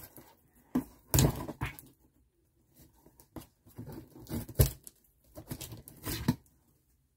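Scissors cutting and scraping at the packing tape on a cardboard box, in several short bursts, the loudest about a second in and again just past four seconds.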